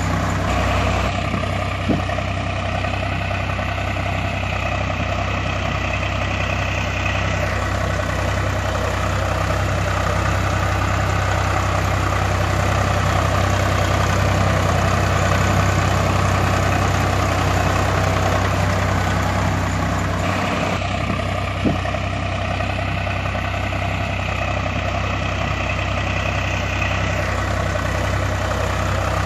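Heavy diesel engine idling steadily. The same stretch of sound repeats about every 20 seconds, each time with a single click, like a looped engine recording.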